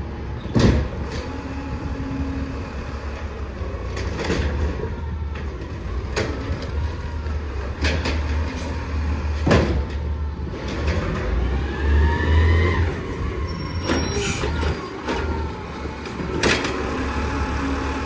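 Peterbilt 320 automated side-loader garbage truck running as it rolls slowly up to the curb, a steady low engine rumble with several short sharp sounds and a brief squeal about twelve seconds in.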